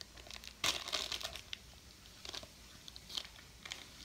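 Gift packaging being torn and crinkled open by hand: a burst of crackly tearing about half a second in, then a few softer crinkles.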